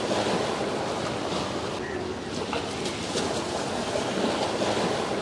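Steady rushing of water and wind, with no distinct pitched engine note standing out.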